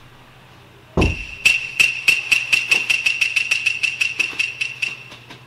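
A sudden low hit about a second in, then a fast run of sharp metallic strikes, about four or five a second, each ringing on the same high note, fading toward the end.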